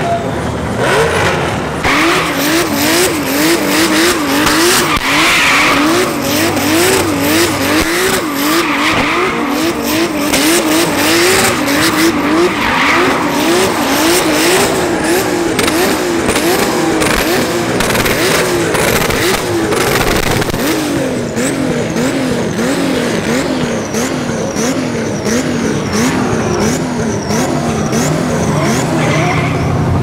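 Drift cars sliding in tyre smoke: an engine revved hard up and down in quick pulses, about twice a second, over the continuous skid and squeal of spinning tyres.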